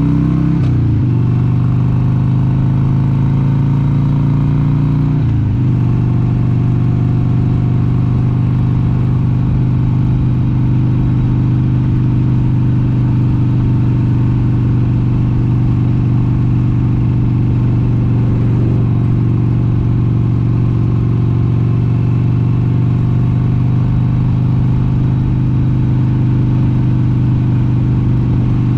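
1996 Harley-Davidson XLH883 Sportster's air-cooled 883 cc V-twin under way. Its pitch climbs and drops sharply twice as it shifts up, about a second in and about five seconds in, then it runs at a steady cruise.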